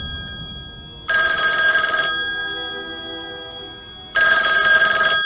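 Black rotary desk telephone ringing twice, each ring about a second long and fading out slowly before the next; the tail of an earlier ring dies away at the start.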